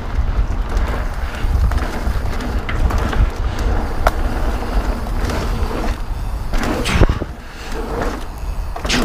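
2021 Polygon Siskiu T7 full-suspension 29er mountain bike riding fast down dirt singletrack: tyres rolling over the dirt under a steady low rumble, with scattered clicks and rattles from the bike over bumps. There is a sharper knock about seven seconds in, after which the rumble eases.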